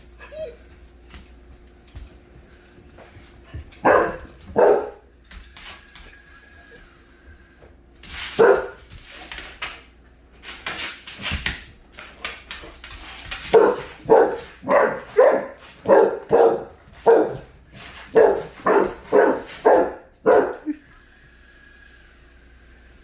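English Labrador barking at a robot mop: a few scattered barks, then a fast run of barks, about two a second, for several seconds past the middle.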